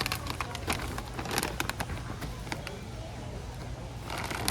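Steady low background hum with scattered clicks and rustles of handling, and faint voices in the background.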